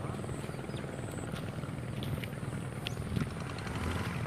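Small motorcycle engine running steadily while climbing a steep concrete path.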